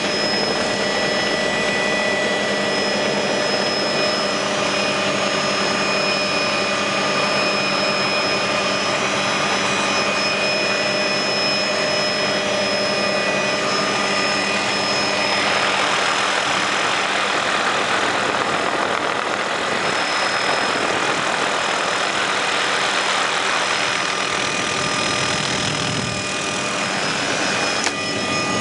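Helicopter engine and rotor heard from inside the cabin in flight: a steady drone with several high, steady whining tones. About halfway through, a louder rushing hiss joins in and fades again near the end.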